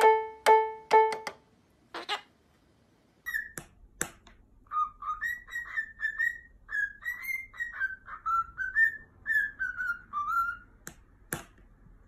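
A single piano note struck repeatedly, then after a short pause a cockatiel whistling a tune: a run of short, gliding, rising and falling notes lasting several seconds.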